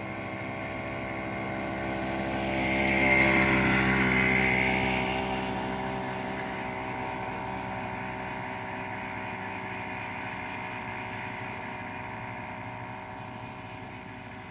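Small petrol engine of a homemade motorized bicycle running steadily, growing louder to a peak about three to four seconds in, then slowly fading away.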